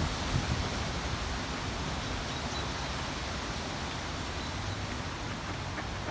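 Wind blowing, a steady even hiss, with a couple of very faint high peeps.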